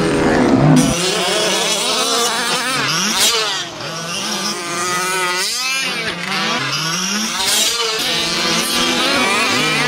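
Small two-stroke gas engines of fifth-scale RC racing trucks revving up and down, several overlapping, their pitch rising and falling as throttle is applied and released. One engine is loud and close in the first second before the sound shifts.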